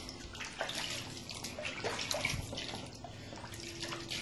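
Water pouring and trickling with small irregular splashes as gold concentrates are rinsed down into a gold pan.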